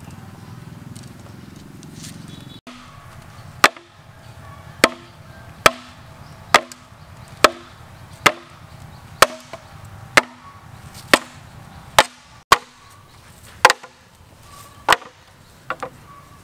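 Repeated hard knocks of a bamboo mallet driving a machete blade down into a bamboo pole to split it lengthwise. The knocks come about one a second, each with a short hollow ring, starting a few seconds in.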